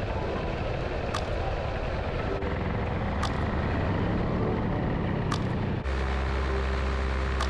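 A dense, steady rush of wind and engine rumble heard in flight under a paramotor, with no clear engine note. About six seconds in it cuts to the steady, even drone of the paramotor's engine at cruise.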